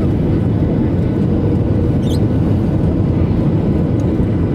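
Steady jet airliner cabin noise on the landing approach: a loud, even rumble of engines and airflow, heard from inside the cabin at a window seat over the wing.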